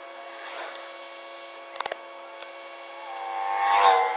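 Black tape being pulled off the roll: a rising ripping squeal that swells over the last second and peaks near the end, after a quick run of four clicks about two seconds in, over a steady faint hum.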